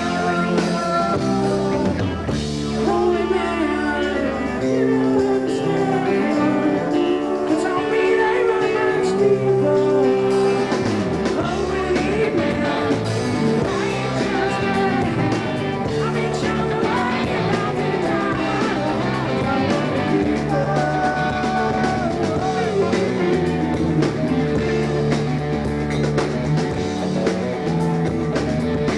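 Live rock band playing: a male singer over electric guitars.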